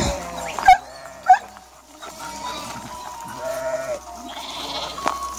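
A large flock of sheep bleating, many animals calling over one another, with two short, sharp, loud calls in the first second and a half.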